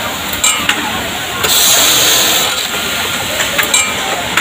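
Compressed-air hiss from a pneumatic bartack sewing machine: a loud burst begins about a second and a half in and lasts about a second, over steady factory-floor noise. A few sharp clicks come near the start and again near the end.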